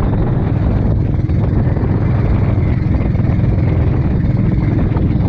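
Engine of a motorized outrigger boat (bangka) running steadily under way, a loud low drone with a fast, even pulse.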